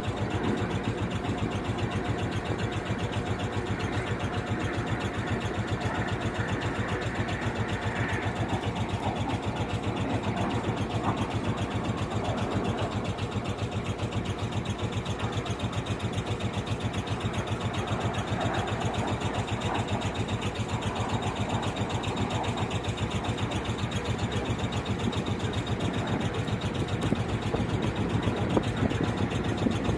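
Motorboat engine running steadily at low speed with an even, rapid throb as the boat moves slowly through the water.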